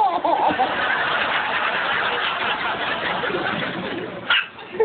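A baby gives one short, sharp sneeze near the end, over a steady rushing noise.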